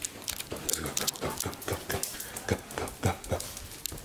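A quick, irregular run of clicks and taps on a hardwood floor: footsteps and a small dog's claws clicking as it trots along.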